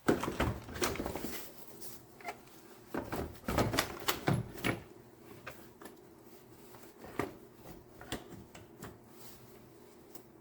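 Irregular clicks, knocks and rustles of a plastic air box and intake parts being handled and fitted in a car's engine bay, busiest about three to five seconds in.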